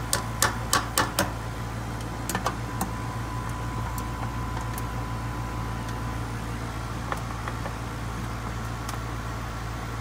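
A 3-ton residential AC condenser running with a steady low hum from its compressor and fan. Over it come a quick run of sharp metallic clicks in the first second and a few more about two and a half seconds in, from a hand tool working the capacitor's mounting strap in the sheet-metal control panel.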